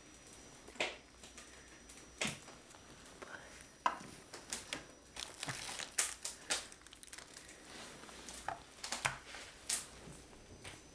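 Irregular crinkling and rustling with scattered sharp clicks and knocks, busiest in the middle, as of something being handled.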